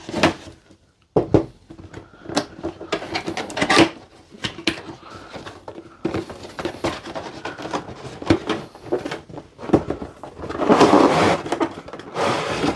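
Cardboard packaging being opened and handled: a string of knocks, taps and scrapes as the box is slid out and its hinged lid folded open, with a longer rubbing, sliding sound about ten and a half seconds in.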